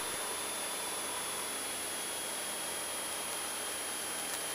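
Steady hiss of the aircraft's intercom/radio audio feed with a few thin steady tones, and the Citabria's engine only faintly heard as a low hum beneath it.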